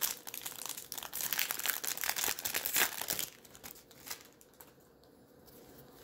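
The wrapper of a 2021 Topps Series 1 baseball card pack being torn open and crinkled by hand for about three seconds, then only faint handling sounds.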